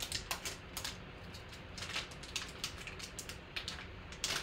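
Glossy black wrapper of a sealed trading-card pack crinkling as hands tear and pull it open: irregular sharp crackles, several a second, with the loudest burst near the end.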